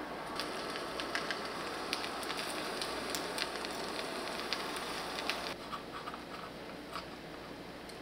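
Light, irregular clicks and taps of a knife on a wooden cutting board as cheese slices are cut into strips, over a steady hiss; the tapping thins out to a few soft clicks a little past halfway.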